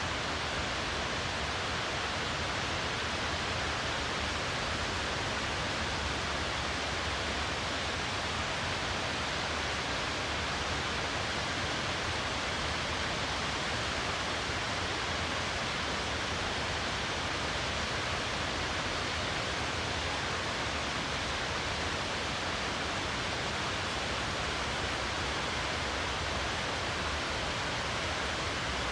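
Snowmelt water pouring over a dam as a waterfall: a steady, unchanging rush of falling water.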